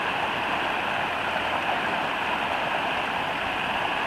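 Fast mountain stream rushing over rocks in pocket water, a steady, even rush of whitewater close by.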